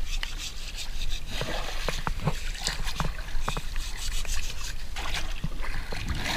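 Water sloshing and splashing, with scattered small splashes and drips throughout.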